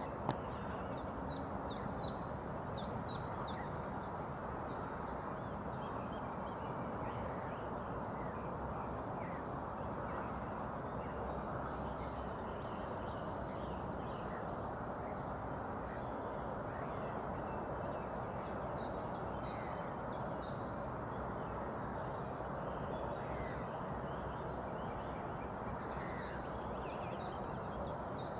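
Small birds chirping and singing in bursts of quick high notes, over a steady even background rush.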